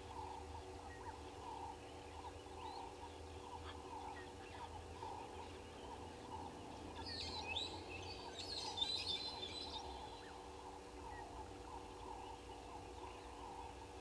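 Birds calling: a steady series of low calls repeated about two to three times a second throughout, with a brief flurry of high, shrill chirps about halfway through.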